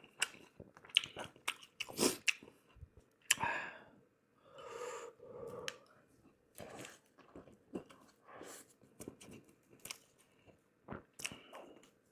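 Close-miked chewing and biting of roasted pork head, with irregular sharp crunches and wet mouth clicks.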